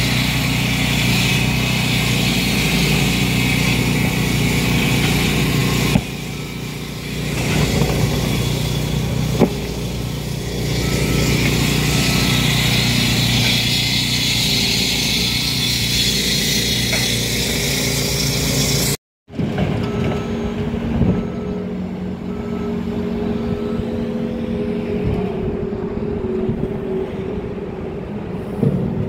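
Steady running of construction machinery engines at an asphalt work site. About 19 seconds in the sound breaks off for a moment and comes back quieter, as a steady engine hum.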